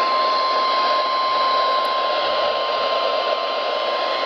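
NOAA Weather Radio's 1050 Hz warning alarm tone: a single steady tone over loud radio hiss. It signals that a warning message, here a severe thunderstorm warning, is about to be broadcast.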